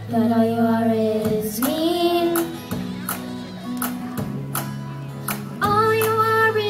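A girl singing into a microphone, holding long notes over instrumental accompaniment with a steady beat.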